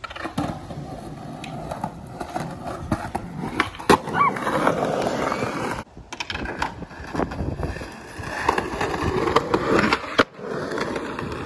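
Skateboard rolling on concrete, a steady grainy rumble from the wheels broken by sharp clacks of the board and trucks striking the ground. Near the end the trucks grind along a concrete curb edge.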